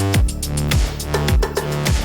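Background music with an electronic beat: a kick drum about every 0.6 s under sustained synth tones.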